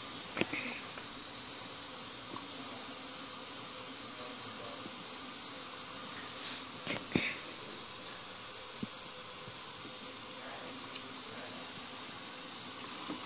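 Steady high-pitched hiss with a few faint taps as glue is stirred into warm water in a cup.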